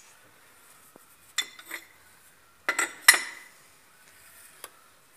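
Steel spanner clinking against the nut and body of a screw-type cylinder liner puller as it is worked to press a liner out of an Isuzu engine block: a few sharp metallic clinks in two groups, about a second and a half in and again about three seconds in, the second group the loudest.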